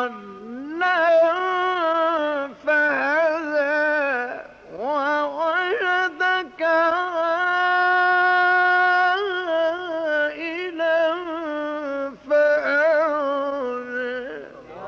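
A male Quran reciter's solo voice chanting in the melodic mujawwad style, with long held notes and ornamented runs and short breaks between phrases.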